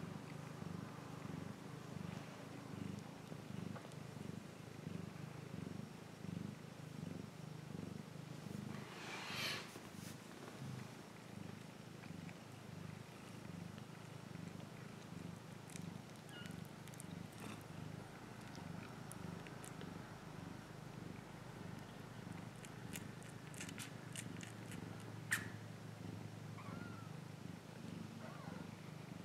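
Maine coon mother cat purring steadily and low while her kittens nurse. A brief rustle comes about a third of the way in, and a single sharp click near the end.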